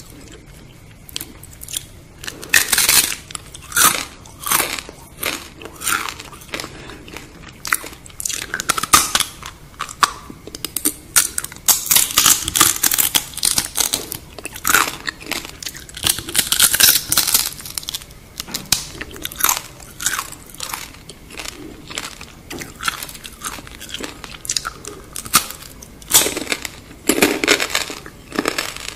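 A person biting and chewing deep-fried scorpions close to the microphone: crisp crunches and crackles come in quick runs with short pauses between.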